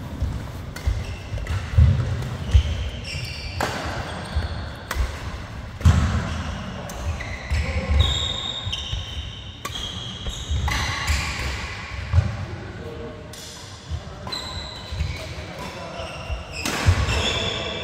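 Badminton doubles rally: rackets striking the shuttlecock in a string of sharp, echoing cracks, with shoes squeaking on the synthetic court mat between shots.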